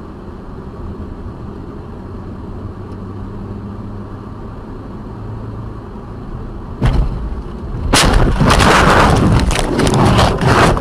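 Steady low vehicle rumble, then a sudden bang about seven seconds in and, a second later, a loud harsh crashing noise lasting about three seconds before it cuts off abruptly: a road vehicle collision.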